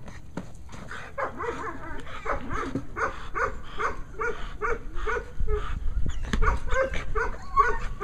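German shepherd barking in a rapid, steady string of about three barks a second, a drive bark at a decoy holding a bite sleeve while the dog is held back by its collar in protection training.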